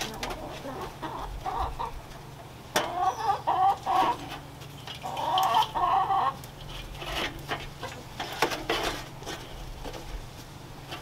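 Chickens clucking in two bouts, about three and five seconds in, with scattered sharp clicks between them.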